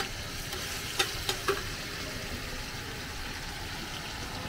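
Mussel pancakes (hoi tod) sizzling in oil on a large flat griddle pan. About a second in, three sharp clinks come from the metal spatulas striking the pan.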